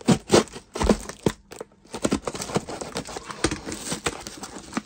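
A taped cardboard box being sliced with a ceramic-blade safety knife and pulled open by hand: a run of scraping, crackling and tearing, with a few louder knocks in the first second and a short pause after.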